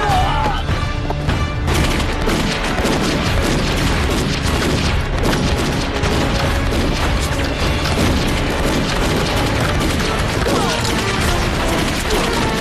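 Dramatic background music over war-film battle sound effects, with explosions and dense sharp impacts throughout.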